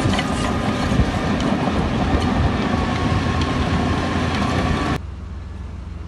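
Heavy diesel earthmoving machine working, its engine running under loud metallic clanking and rattling. About five seconds in the sound cuts off abruptly to a quieter, steady low engine hum.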